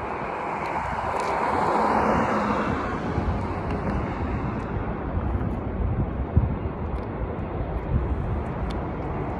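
Outdoor traffic rumble, swelling as a vehicle passes about two seconds in, then running on steadily.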